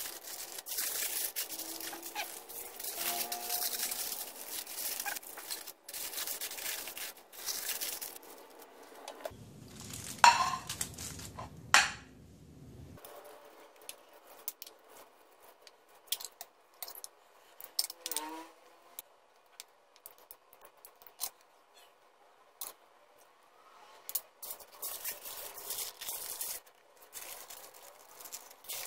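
Aluminium foil crinkling and banana leaf rustling as a fish parcel is folded and wrapped by hand, with scattered small clicks and taps. Two sharp clicks about ten and twelve seconds in are the loudest sounds.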